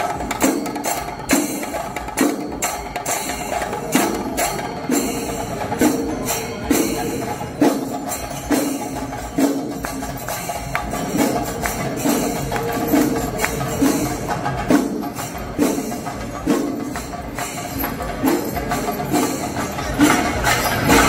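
Percussion-led music with a steady beat: repeated drum strikes with jingling metal over sustained tones.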